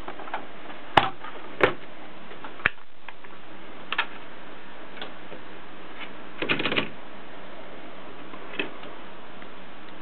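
Gossen Tippa portable typewriter being handled: a handful of separate sharp mechanical clicks and clacks, spaced a second or more apart, with a quick run of clicks in the middle, over a steady hiss.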